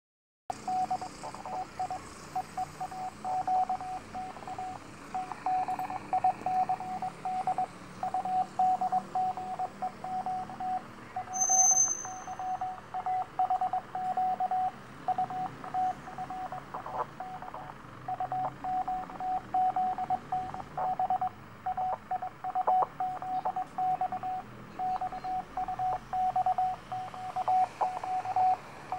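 Morse code (CW) station on 6605 kHz received in USB mode on a Sangean ATS-909X shortwave radio: a steady mid-pitched tone keyed on and off in dots and dashes over band hiss and static crackle. A short high beep sounds once about eleven seconds in.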